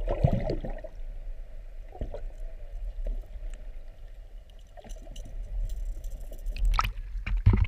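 Water heard from below the surface: muffled gurgling and swishing over a low rumble, loudest in the first second, with a couple of sharp knocks near the end.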